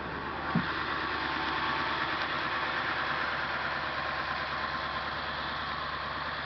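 Ford E450's 7.3-litre PowerStroke turbo diesel idling steadily, with one brief thump about half a second in.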